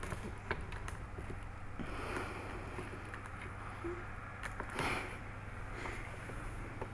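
Soft rustling and light clicks from the hand-held camera being handled, over a steady low hum, with the loudest rustle about five seconds in.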